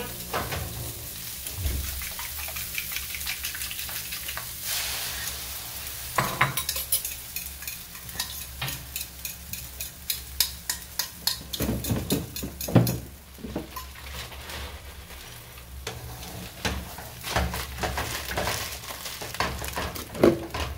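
Eggs, vegetables and bacon sizzling in a frying pan, with a steady hiss and frequent irregular scraping and tapping of a utensil against the pan as they are stirred.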